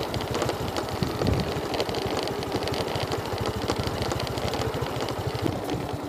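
Motorcycle engine running at low revs, a rapid, even putter.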